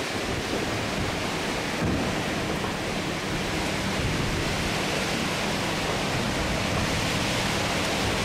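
Heavy thunderstorm rain pouring down, a steady loud hiss.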